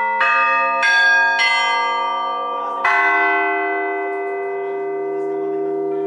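A set of hanging church bells of different sizes rung by hand. Three strokes on different bells come about half a second apart, with a fourth about three seconds in. The notes overlap and ring on, dying away slowly.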